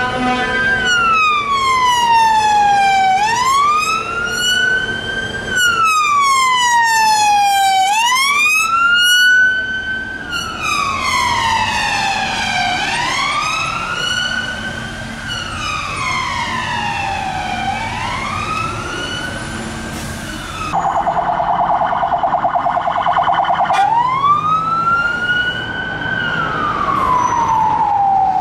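Police car siren on a wail, sliding slowly up and down in pitch about once every five seconds. About three-quarters of the way through it switches for a few seconds to a fast choppy warble, then goes back to the wail.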